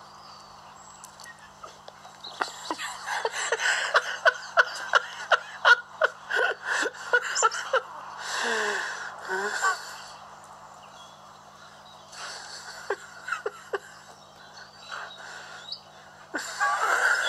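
A person laughing breathily in quick pulses, dying away about ten seconds in, then a few more bursts of laughter and a louder one near the end.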